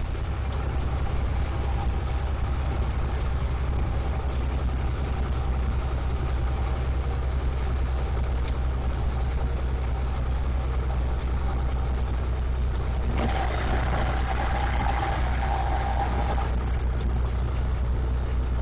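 Semi truck's engine droning steadily under tyre and road noise, heard from inside the cab while cruising on the highway. A higher hum and extra hiss rise for about three seconds a little past the middle.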